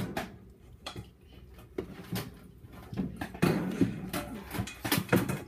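Rocks being set into an aquarium, knocking and clacking against each other and the tank glass, with scraping. The knocks are irregular and get busier about halfway through.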